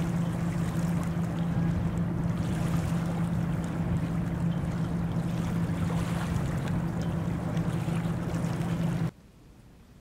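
Small waves washing over a cobble beach, over a steady low engine drone. Both cut off abruptly about nine seconds in, leaving a faint hush.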